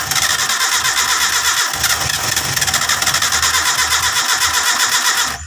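Starter motor cranking a long-dormant carburetted car engine on jump-connected batteries, with a fast, even pulsing beat, stopping suddenly near the end.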